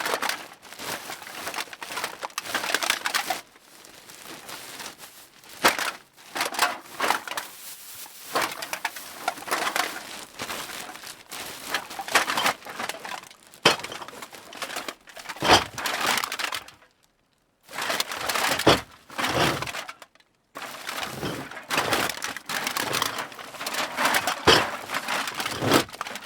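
Cans being dropped and jostled into a bag: a dense run of clattering knocks with crinkling, coming in bursts, broken by two brief pauses about two-thirds of the way through.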